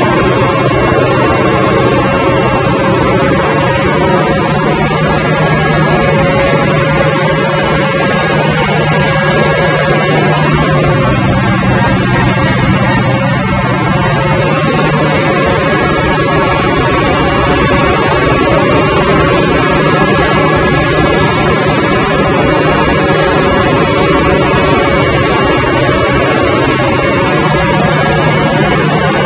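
Universal U650 tractor's four-cylinder diesel engine running steadily under way, heard loud from inside the cab.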